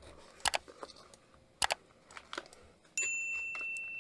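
Cardboard box and packaging being handled: a few sharp rustles and clicks. About three seconds in comes a bright bell-like notification chime, a single high ringing tone that slowly fades.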